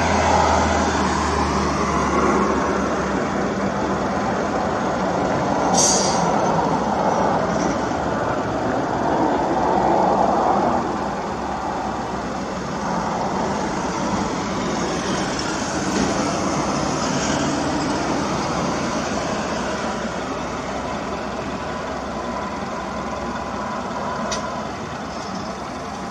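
Steady rumble of a passing train and road traffic, louder for the first half and then easing. A sharp high click about six seconds in and a faint one near the end.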